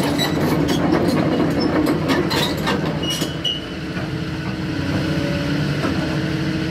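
Sumitomo SH220LC-3 excavator's diesel engine idling steadily. Irregular clicks and knocks run over it for the first three seconds or so.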